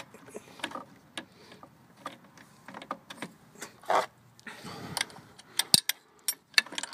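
Irregular small metallic clicks and knocks of hand tools and metal engine parts being handled, with a few sharper clicks near the end.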